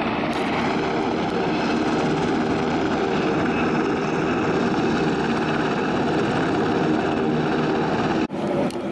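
Helicopter running: steady, loud turbine engine and rotor noise with a continuous whine. It cuts off abruptly near the end.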